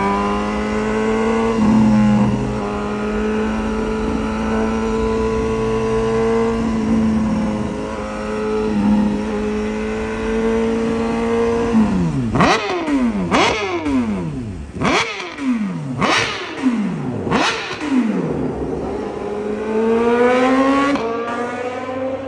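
BMW HP4's inline-four engine through a full exhaust system, held at steady revs with a few brief dips. After that it is revved sharply five times in quick succession, each rev rising fast and falling away, and then revved once more near the end.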